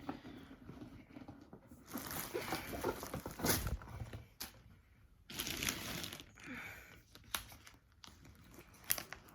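Packaging being handled as a MacBook Pro box is opened and the laptop lifted out: irregular rustling and crinkling of wrapping and cardboard, with a few light knocks.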